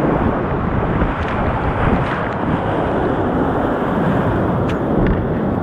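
Whitewater rapids rushing steadily and loudly, with wind buffeting the microphone.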